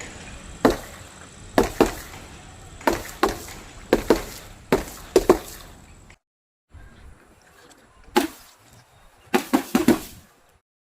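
A series of sharp, separate blows striking and crushing objects: about ten hits in the first six seconds, a brief break, then about five more near the end.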